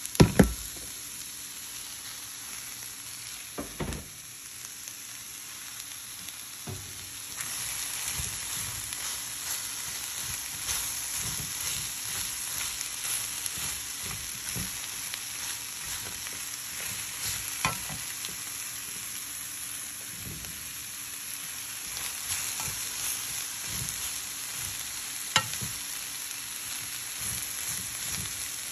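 Shredded cabbage and onions sizzling in a hot pan while being stirred with a wooden spatula; the sizzle grows louder about seven seconds in. A few sharp knocks, the loudest just after the start.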